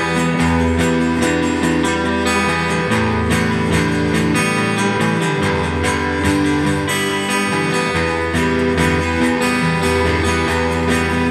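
Stoner rock band playing an instrumental passage: sustained guitars over a low bass line, without singing.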